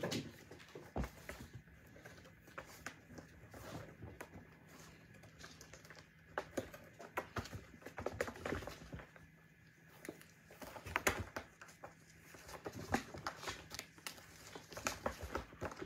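Kittens play-fighting on a cat scratcher: an irregular patter of paws, claws scratching and light knocks against the scratcher, with a few louder knocks in the second half.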